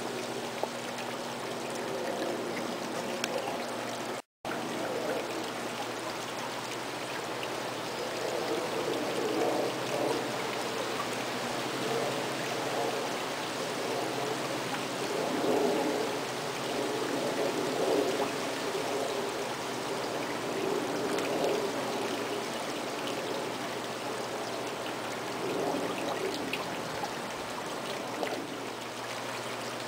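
Wet clay squelching and swishing under the potter's hand as a large thrown earthenware pot turns on the wheel and the joint between its two sections is worked, swelling and easing with each pass. A faint steady hum runs underneath.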